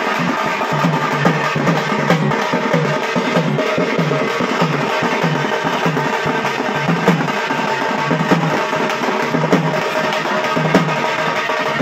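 Barrel drums played in a fast, steady kuthu dance rhythm, about two strong beats a second, with sustained ringing tones above the beat.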